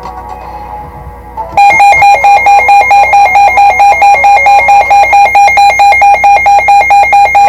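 Quiet electronic music, then about a second and a half in a loud electronic alarm tone cuts in and beeps rapidly and evenly: the attention signal of a mock Emergency Alert System broadcast.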